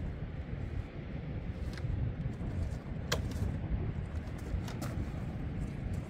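Steady rush of wind and ocean surf, with a few sharp clicks from the rooftop tent's fastenings as they are worked by hand, the loudest about three seconds in.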